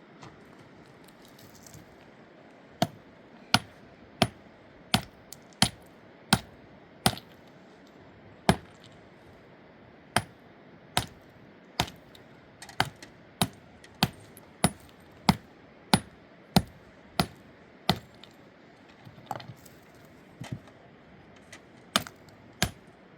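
Repeated sharp, clinking blows of a hand tool on something hard, about one and a half a second, with a few gaps and a short final run near the end.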